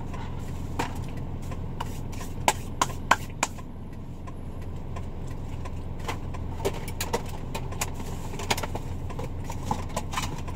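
Car engine idling steadily, heard inside the cabin, with scattered short clicks and crackles over it, the loudest a few close together about two and a half to three and a half seconds in.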